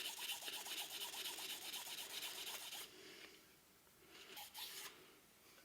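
Fine 2000-grit wet sandpaper rubbing back and forth over the metal body of an old coffee grinder in quick, rhythmic strokes. It stops about three seconds in, and a brief faint rub follows a little past four seconds in.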